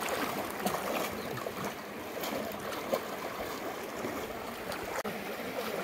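Floodwater sloshing and splashing steadily around legs wading knee-deep through it, with a brief knock about three seconds in.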